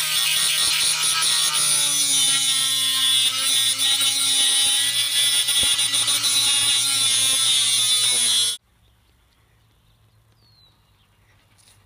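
Electric power tool running loud with a high whine and heavy hiss, its pitch sagging slightly as it works. It cuts off suddenly after about eight and a half seconds.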